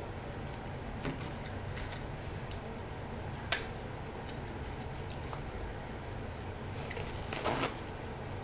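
Close-up eating sounds: biting into and chewing seafood-boil corn on the cob, with wet mouth sounds and a sharp click about three and a half seconds in. A short rustle comes near the end, over a steady low hum.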